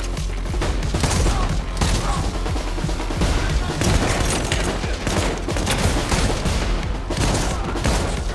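Film-soundtrack gunfight: repeated shotgun blasts from a shotgun firing incendiary Dragon's Breath rounds, mixed with other gunfire, over score music.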